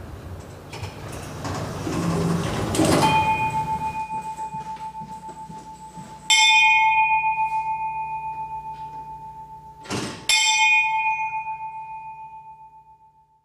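A rising rushing swell builds into a bell struck three times, at about 3, 6 and 10 seconds in, each ring a single high tone that fades slowly with a pulsing shimmer. A short whoosh comes just before the third strike.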